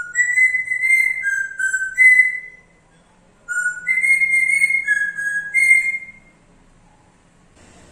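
African grey parrot whistling a tune: two phrases of clear held notes stepping up and down in pitch, each about two and a half seconds long, with a pause of about a second between them.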